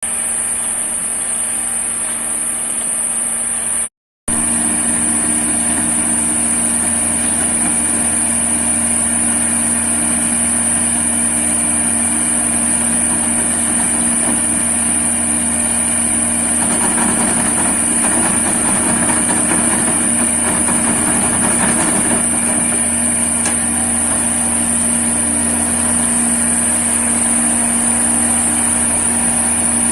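SLM 4000 self-loading concrete mixer's engine running steadily, with a constant high whine over it. The sound cuts out briefly about four seconds in, then carries on unchanged.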